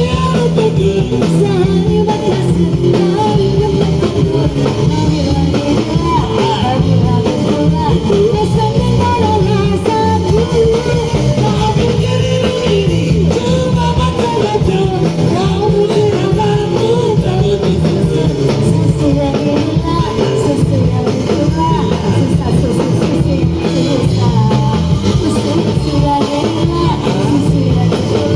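A Chinese song playing: a singer's voice carrying the melody over guitar and drum kit.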